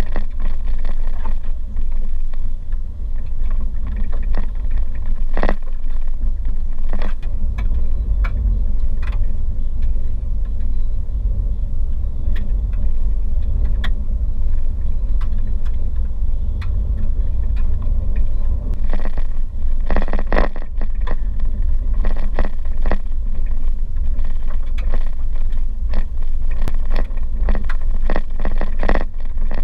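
Car driving on a rough gravel road, heard from inside the cabin: a steady low rumble of tyres and running gear, with frequent sharp knocks and rattles as it jolts over the bumps. The knocks bunch up about two-thirds of the way through and again near the end.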